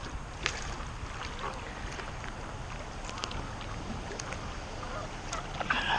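Paddling on a stand-up paddle board in the rain: a steady wash of water with scattered small splashes and ticks, and a brief call near the end.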